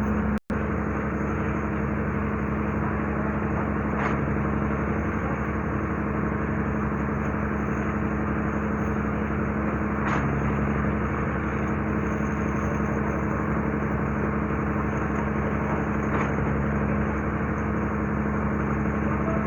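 Steady drone of a running engine on construction machinery, an even hum that holds at one pitch throughout, with a brief break about half a second in.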